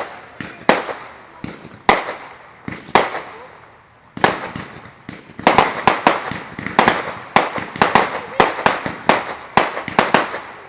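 Consumer fireworks going off: sharp bangs, each trailing off with a crackle or echo. A few come spaced apart at first, then a rapid run of bangs starts about four seconds in.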